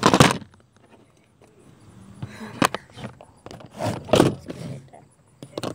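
Handling noise from a camera being picked up and moved: a loud rustling bump right at the start, then scattered knocks and scrapes, the heaviest around the middle.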